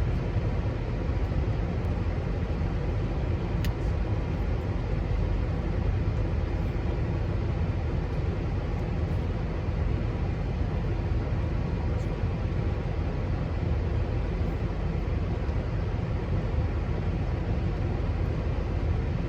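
Steady low rumble of a car's cabin with the engine running, with one light click a few seconds in.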